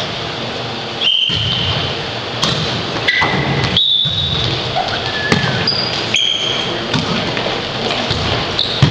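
Sneakers squeaking in short high squeals on a wooden gym floor during a volleyball rally, with sharp thuds of the ball being hit, the loudest near the end as a player spikes it at the net. Players' voices and movement make a steady background in a large hall.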